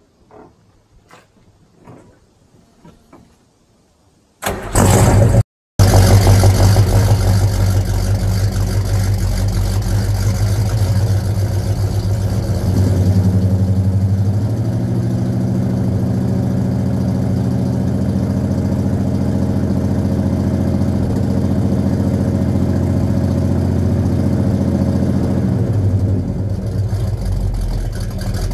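A few light clicks of a car door and footsteps. Then the 1970 Buick GS455's 455 V8 is cranked and fires about five seconds in, and settles into a steady, loud high idle through a 3-inch exhaust with SpinTech mufflers. The idle eases down a little near the end.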